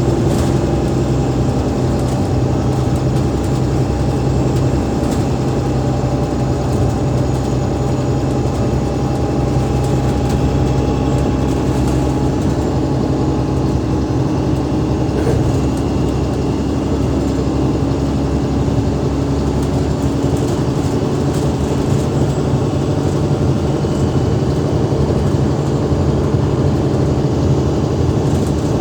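Alexander Dennis Enviro500 MMC double-decker bus running, its Cummins ISL8.9 diesel engine and ZF Ecolife gearbox giving a steady drone with faint whining tones that drift slowly in pitch.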